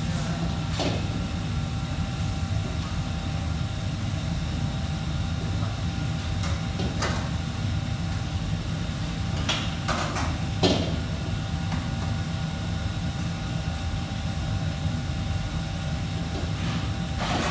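Busy commercial kitchen: a steady low machine rumble runs under occasional knocks and clatters of pots, pans and utensils being handled. A short cluster of clatters about ten seconds in is the loudest.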